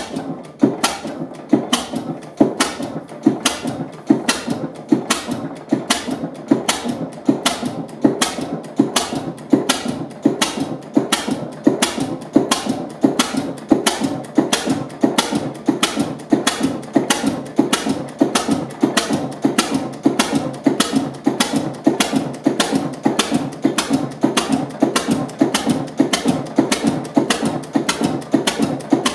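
Novak single-cylinder stationary engine running steadily, with a sharp, even beat about twice a second.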